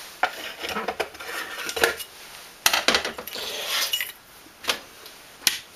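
Metal parts of a brass paraffin pressure stove's burner clinking and knocking as they are picked up and handled: a series of sharp metallic clicks, with a brief scraping rattle about three seconds in.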